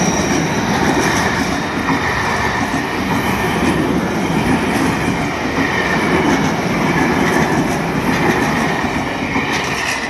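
Tobu 50000-series electric commuter train pulling out of the station and running past a level crossing close by: a steady loud rumble of wheels clattering over the rails and crossing, with a faint high squeal from the wheels. The noise falls away at the very end as the last car clears.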